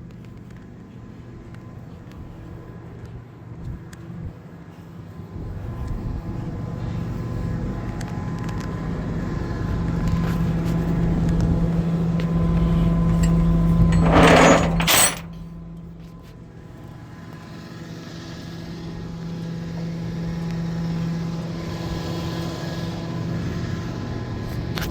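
Tow truck's engine and hydraulics running while a vehicle is hooked up: a steady mechanical hum that builds for several seconds, a loud burst of noise about fourteen seconds in, then a sudden drop before it builds again.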